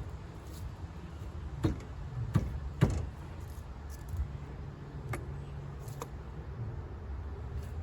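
Tools and metal parts knocking and clinking during golf cart rear hub work: three sharp knocks close together a couple of seconds in, then two fainter clicks later, over a low steady hum.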